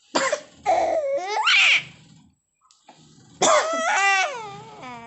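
A person coughing twice, quickly, at the start, and a 5-month-old baby answering with high-pitched laughter: a rising squeal, then a longer wavering laugh about halfway through that breaks into quick pulses near the end.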